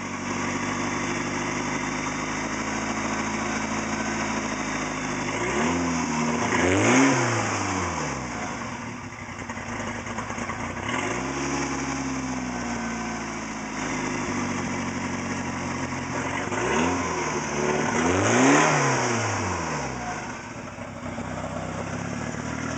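Eagle Talon TSi's turbocharged four-cylinder engine idling and revved three times, the middle rev gentler, on freshly fitted rod bearings after a spun rod bearing. The owner reports no rod knock yet.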